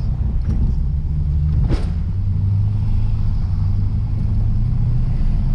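Lexus RC F's 5.0-litre V8 running at low revs, with a steady rumble from tyres on a cobbled street. About two seconds in there is a brief click and the engine note steps down to a lower pitch.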